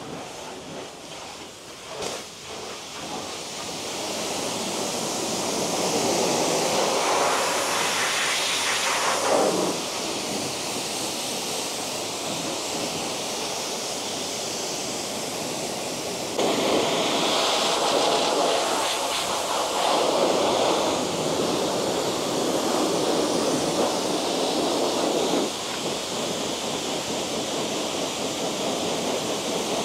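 High-pressure washer jet from a self-service car-wash lance spraying water onto a mini excavator's boom and bucket, rinsing off loosened grease. A steady hiss grows fuller and louder in two long stretches while the spray strikes the metal close by; the second stretch starts suddenly about halfway through.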